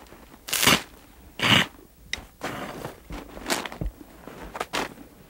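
Five or six short crunching, rustling noises: dry baled hay being cored with a forage sampling probe, and boots shifting on packed snow.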